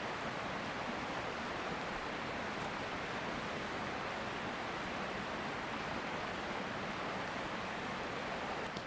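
Mountain stream flowing with a steady, even rush of water.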